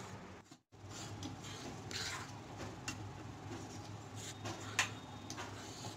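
Spatula stirring and scraping dry flour around a pan as it roasts: soft, scattered scrapes over a faint low hum, with a sharper scrape or tap near the end.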